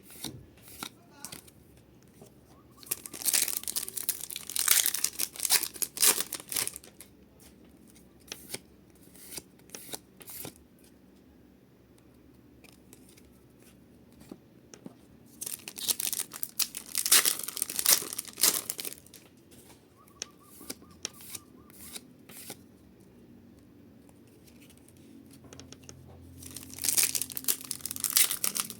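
Foil Pokémon card booster packs being torn open and their wrappers crinkled, in three bouts of tearing and rustling with softer handling rustles between.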